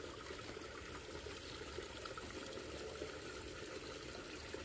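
Small stream trickling steadily over rocks, faint and even.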